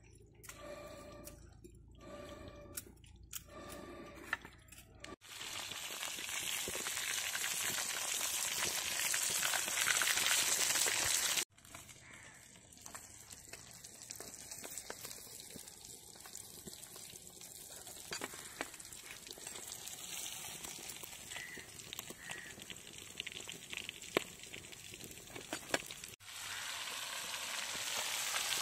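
Pieces of rohu fish frying in hot oil in an iron kadai: a steady sizzle, louder in some stretches and softer in the middle, with the odd tick as a spatula turns the pieces. The first few seconds instead hold clinks and handling noise.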